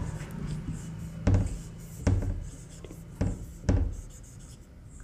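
Marker pen writing on a whiteboard: faint squeaky strokes, with four sharp taps as the tip strikes the board. A steady low hum runs underneath.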